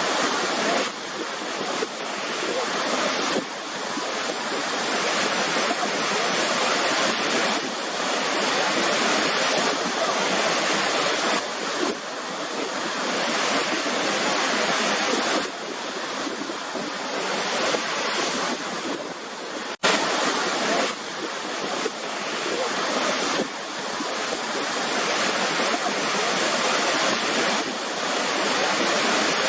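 Waterfall: a steady rush of falling water that swells and eases every few seconds, with a brief break about twenty seconds in.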